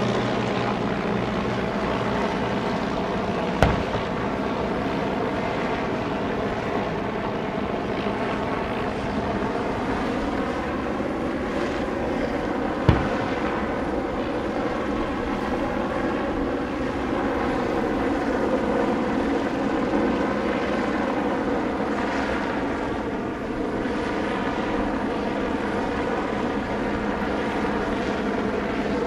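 Several de Havilland Tiger Moth biplanes flying overhead, their piston engines droning steadily with a slowly wavering pitch. Two sharp bangs stand out, one a few seconds in and one near the middle: the fort's WWII guns firing in salute.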